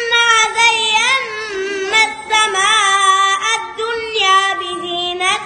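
A boy reciting the Quran in the melodic chanting style of a qari, holding long notes in a high child's voice with wavering, ornamented turns of pitch.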